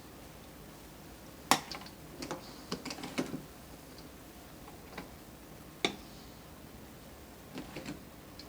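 A utensil knocking and clinking against a cooking pot as rice is spooned in: one sharp knock about a second and a half in, a quick run of lighter clicks after it, another sharp knock near the six-second mark, and a few soft clicks near the end.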